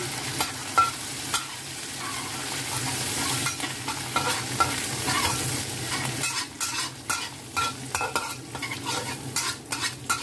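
Garlic, fish and fermented black beans sizzling in hot oil in a wok while a metal spatula stirs and scrapes them, frying until fragrant. Sharp clicks of the spatula against the wok come thick and fast in the second half.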